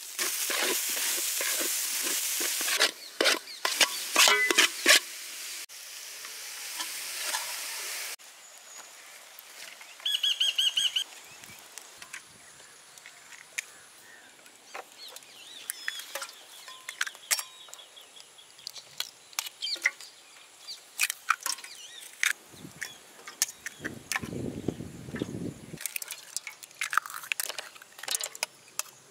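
Boiled goat brain frying in a pan with spices: sizzling in two stretches during the first eight seconds, with spatula scrapes and knocks between them, then only scattered light stirring clicks.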